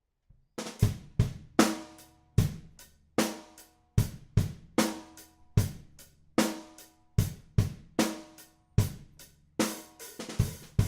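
Drum kit played in a steady beat on a Brady 14x7-inch Marri ply snare drum, with bass drum and hi-hat; the snare rings with a low, dry tone. The playing starts about half a second in and gets busier, with more cymbal, near the end.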